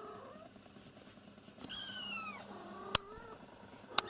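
A cat meows once, a single call falling in pitch, about two seconds in. Two sharp clicks follow about a second apart near the end.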